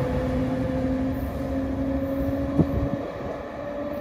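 Bombardier ALP-46 electric locomotive's MITRAC GTO-VVVF traction inverter whining as it accelerates away, two steady tones rising slowly in pitch over the rumble of the train. The lower tone cuts out about three seconds in, and a single sharp click comes just before.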